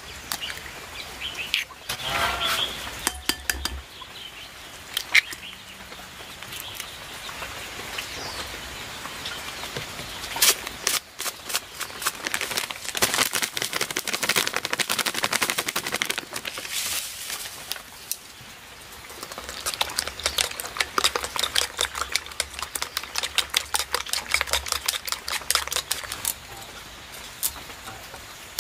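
Eggs cracked into a ceramic bowl of chopped broccoli and spring onion, then beaten with chopsticks: scattered taps at first, then two long runs of rapid clicking against the bowl.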